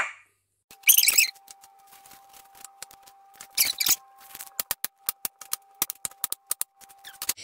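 Kitchen knife cutting apricots on a wooden cutting board: a run of sharp knocks as the blade meets the board, coming several a second in the second half. A faint steady hum lies behind it.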